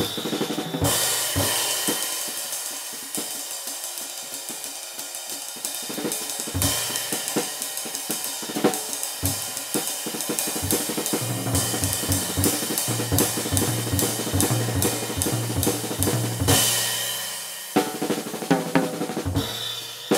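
Drum kit played with sticks over riveted Alexino Old Stamp sKy ride cymbals, the rivets keeping a sustained sizzling wash over the snare and bass drum. Cymbal crashes swell about a second in, near seven seconds and near sixteen seconds, with a drum fill near the end.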